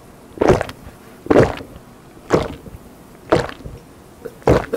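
A person gulping a drink down from a glass close to the microphone: five loud swallows, about one a second.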